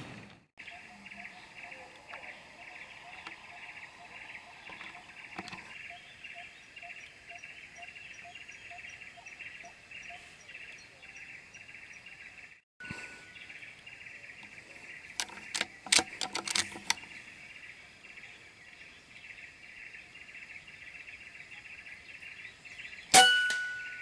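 Steady high drone of forest insects, with a bird calling about twice a second for the first ten seconds. Around the middle there is a quick cluster of sharp clicks, and near the end an air rifle fires with one sharp crack and a short metallic ring.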